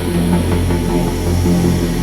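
Dark electronic sci-fi soundtrack music: a steady low drone under sustained layered tones.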